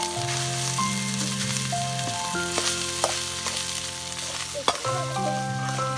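Cooked rice sizzling as it fries in hot oil in a frying pan, with a metal spatula clinking against the pan a few times. A slow melody of held notes plays over it.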